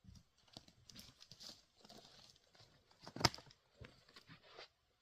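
Faint rustling and shuffling, with one sharp knock about three seconds in.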